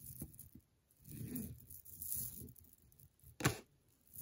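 Strands of small glass beads and chips softly rustling and clicking against each other as they are handled and laid down, with one sharper click about three and a half seconds in.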